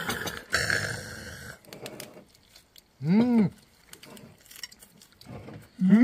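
A man's single short 'mmm' of relish about three seconds in, rising then falling in pitch, as he savours a bite of food. Before it there is a brief burst of rustling noise.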